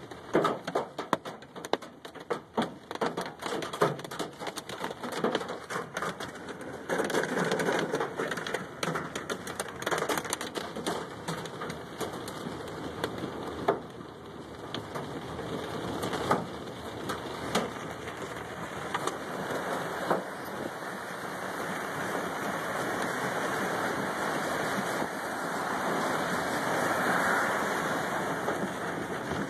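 Hail hitting a truck's roof and body, heard from inside the cab: a dense clatter of separate hard impacts at first, merging into a steadier downpour that grows louder towards the end.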